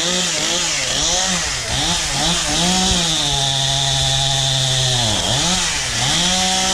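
Chainsaw engine revving up and down in quick blips, then held at a steady high speed for about two seconds before blipping again.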